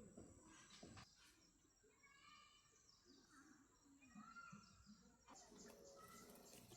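Near silence with faint bird chirps in the background and a faint knock about a second in.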